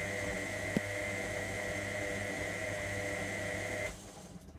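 Electra AWF683 washing machine running with a steady mechanical hum and whine, with a small click under a second in; the running cuts off suddenly about four seconds in.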